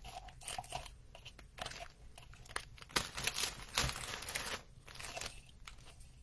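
Plastic bag and shredded gift filler crinkling and rustling as handfuls of white shreds are pulled out and pushed into a small glass jar. The crinkling comes in uneven spells and is loudest about three to four seconds in.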